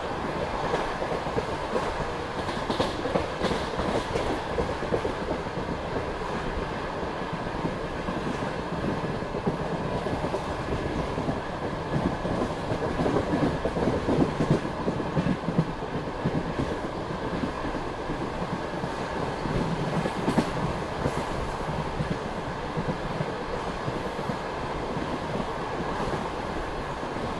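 Passenger train carriage running along the line: a steady rumble with the wheels clacking over the rails, growing louder in a few places.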